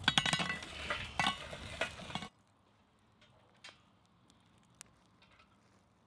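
Hot coals clattering and scraping as they are shovelled onto the cast-iron lid of a Lodge 12 Dutch oven, a dense run of clinks for about two seconds. Then it goes almost silent, with a few faint ticks.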